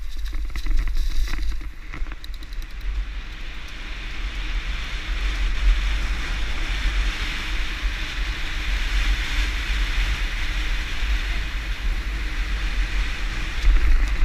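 Wind rushing over a helmet-mounted camera's microphone on a fast mountain-bike descent: a steady low buffeting rumble, with a hiss of wind and rolling knobby tyres that swells through the middle.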